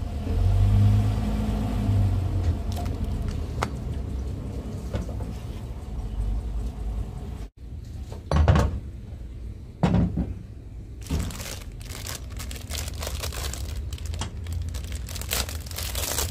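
A motor vehicle's engine rumbling at the start. After a cut come two sharp knocks, then the crinkling of a plastic seal packet being handled.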